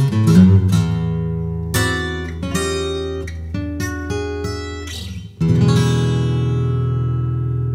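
Bluegrass acoustic guitar: a fast picked run ends about a second in, a few plucked chords follow, then a strummed chord about five seconds in rings out and slowly fades.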